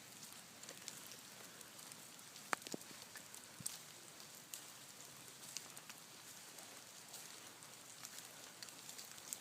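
Water dripping onto leaves under tree cover in the rain: a soft, steady patter with scattered sharper drips. One louder tap comes about two and a half seconds in.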